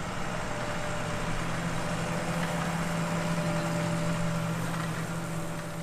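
Combine harvester running steadily during wheat harvest: an even mechanical hum with a steady low drone and a fainter higher whine.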